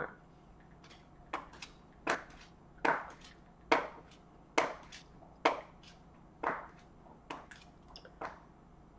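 Fingernails tapping on a smartphone screen while typing a message: sharp separate clicks, about one a second, at an uneven pace.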